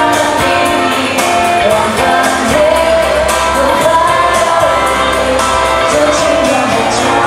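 A singer performing a song over piano and band accompaniment, with long held, wavering sung notes.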